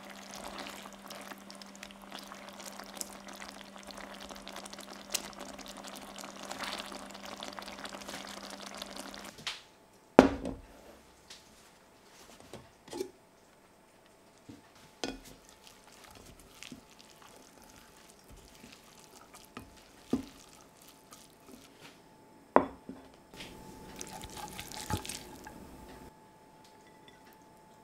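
Beef curry in coconut milk simmering and being stirred in a stainless pan, bubbling over a steady low hum for about nine seconds. Then it cuts to sharp knocks and clinks of a stainless pot, with water poured over brown rice.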